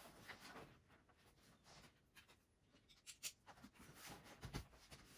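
Mostly quiet, with faint rustling and a few light clicks and a soft knock as parts of a massage chair are handled and fitted.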